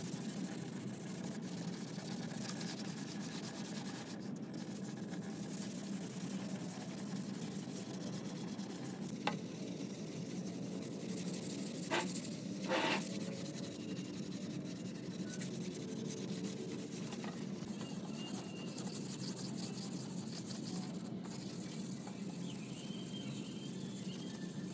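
Steady rubbing or sanding-like noise, with a few light taps between about nine and thirteen seconds in.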